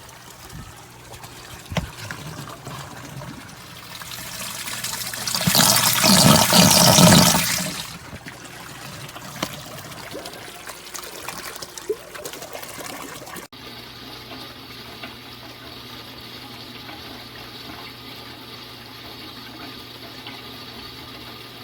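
Water rushing and splashing, loudest for a few seconds before and around the middle, then after a cut the steady electric hum of a submersible water pump running, with a faint trickle of water.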